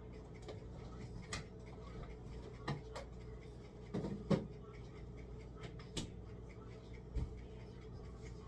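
Refrigerator door opened and things inside handled: a few scattered clicks and knocks, the loudest a pair about four seconds in, over a low steady hum.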